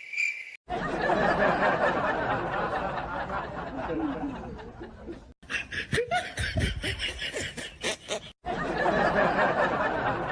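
People snickering and laughing over a busy background, broken by three brief dropouts.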